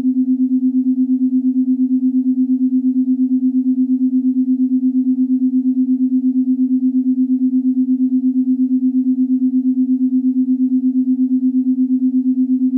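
Synthesized meditation tone: a single steady low hum at one pitch, pulsing evenly in loudness several times a second, as in a binaural-beat track.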